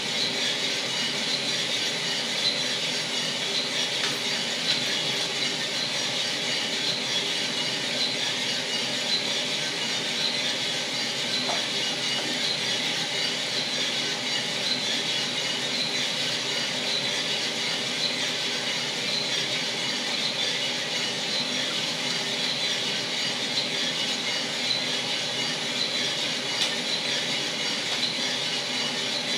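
1 kg Mill City drum coffee roaster running early in a roast, its rotating drum tumbling coffee beans with a continuous gritty rattle over the steady rush of its airflow. The sound is even and unchanging throughout.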